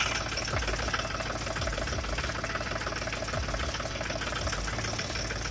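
Mahindra 275 TU tractor's three-cylinder diesel engine idling steadily with an even, rapid diesel clatter. It is running just after an oil and oil-filter change, with oil circulating to the new filter.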